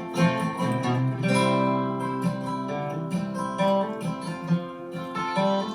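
Acoustic guitar plucking and strumming an instrumental break in a folk song, with no singing.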